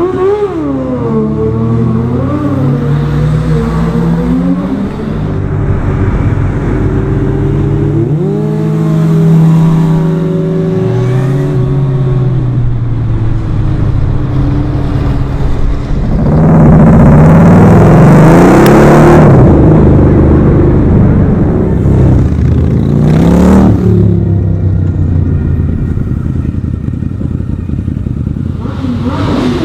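Motorcycle engines revving and accelerating, the pitch rising and falling again and again. About two-thirds of the way through comes the loudest stretch, where a rushing noise joins the engine.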